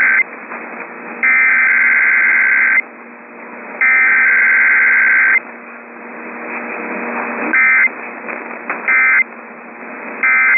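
Emergency Alert System SAME data bursts, a buzzing two-tone digital signal: the end of one long burst, then two more of about a second and a half each, with about a second between them. Near the end come three much shorter bursts, the end-of-message code. Faint radio hiss fills the gaps.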